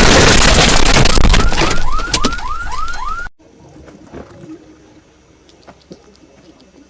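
Heavily distorted, clipping explosion-style meme sound effect: a dense blast of noise with a quick run of rising whoops, about four a second, that cuts off suddenly a little over three seconds in, leaving only faint clicks.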